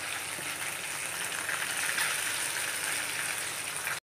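Hot oil sizzling in a kadhai with cumin seeds and green peas as cooked rice is stirred in with a steel spatula: a steady sizzle with light crackling. It cuts off abruptly at the very end.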